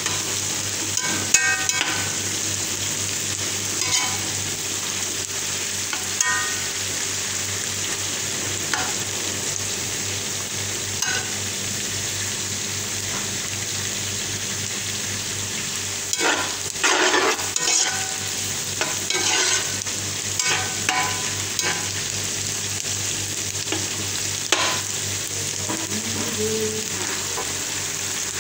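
Sliced onions sizzling steadily in hot oil in a frying pan, stirred with a slotted spatula that clinks against the pan now and then, with a longer stretch of scraping about halfway through.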